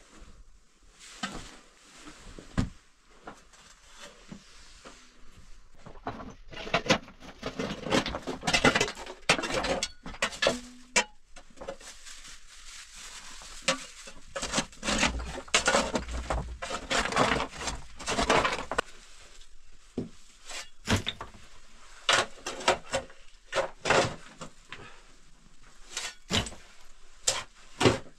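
Digging into hard earth and stone with a wooden-handled hand tool: irregular strikes and scrapes, with loose soil and stones rattling down. A dense run of strikes comes about six seconds in and lasts some twelve seconds, then only scattered single knocks.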